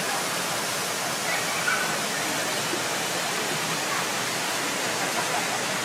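Mountain valley stream rushing steadily over rocks, a constant hiss of running water.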